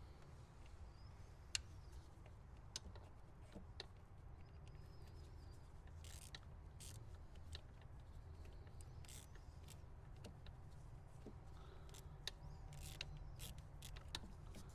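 Faint scattered clicks and small ticks of screws being started by hand into a plastic PCV valve housing, with a few light squeaks, over a low steady hum.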